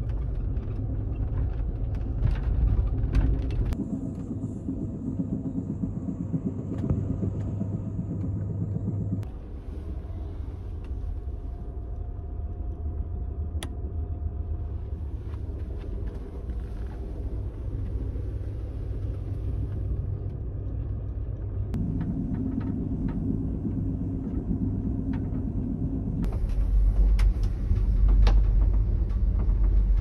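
Steady low rumble of a moving Amtrak Superliner passenger train heard from inside the car, with scattered clicks and rattles. The rumble changes abruptly a few times and grows louder and deeper near the end.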